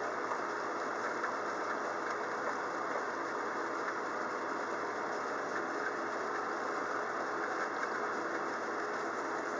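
Steady rain falling in a thunderstorm: an even hiss that holds at one level throughout.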